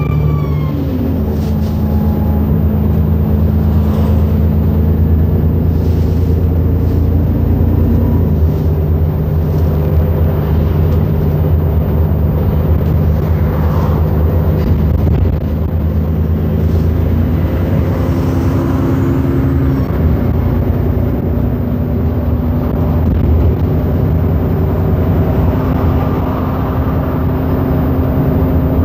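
Interior sound of an Enviro400 double-decker bus under way: the engine drones steadily, its pitch stepping up or down several times, with occasional knocks and rattles.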